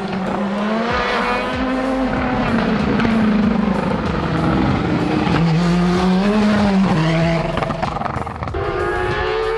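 Open-cockpit sport prototype race car accelerating hard uphill, its engine note climbing and then dropping back several times as it shifts up through the gears. Near the end the sound gives way to a steadier, higher note.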